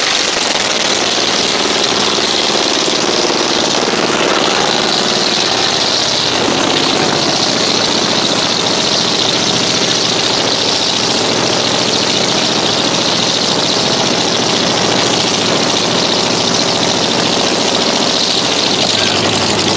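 A seven-cylinder Jacobs R-755 air-cooled radial aircraft engine in a 1939 Plymouth PT-81 pickup runs hard and steady during a burnout, with the rear tyres squealing as they spin and smoke.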